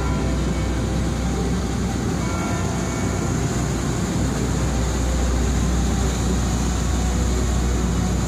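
Inland motor barge passing close by, its diesel engine giving a steady low rumble that grows a little louder about halfway through as the stern and propeller wash come past.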